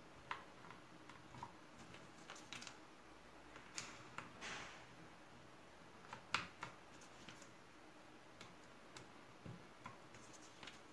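Keys of a mechanical keyboard with wooden XDA-profile keycaps clacking as they are pressed, in an irregular, sparse run of single presses rather than fast typing. The loudest clacks come about four and six seconds in.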